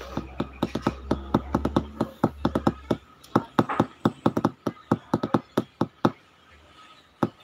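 A quick, irregular run of sharp taps and clicks close to the microphone, about five a second, from a hand handling or tapping things near the phone. The taps stop about six seconds in, and two more follow near the end.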